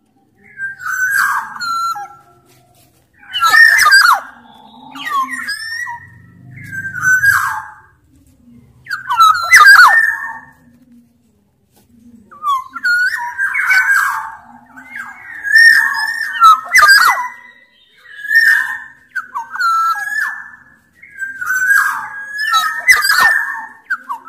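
Black-naped oriole (kepodang, Sumbawa type) singing in repeated phrases: loud fluty whistles mixed with harsh, rasping notes, a new phrase every two seconds or so.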